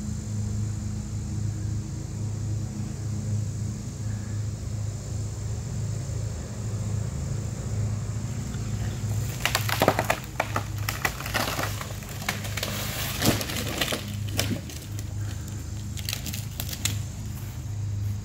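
A tree being pulled over by rope: from about halfway through, a run of wood cracking and splintering with branches crashing, lasting several seconds. A steady engine drone runs beneath it.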